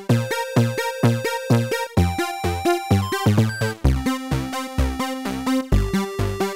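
Upbeat synthesizer background music with a steady beat.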